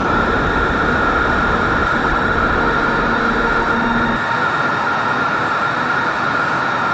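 Experimental synth noise music: a dense, machine-like wash of noise with a steady high drone held throughout. The deep low rumble drops out about four seconds in.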